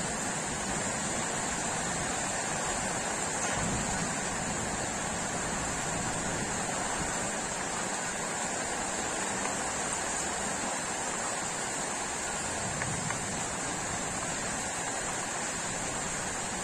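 Steady hiss of heavy rain falling during a thunderstorm.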